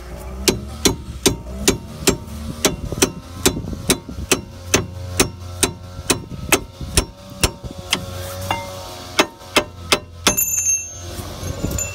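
Hammer blows on steel front suspension parts, struck steadily at about two to three a second, each with a short metallic ring, to split a joint in the front suspension of a Ford Focus. The blows slow and thin out near the end.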